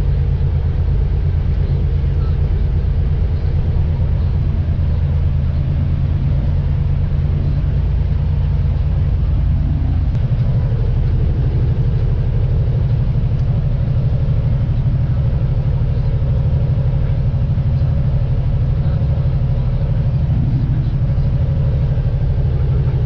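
Semi-truck's Cummins diesel engine running steadily on the road with a low drone; its pitch shifts slightly about ten seconds in.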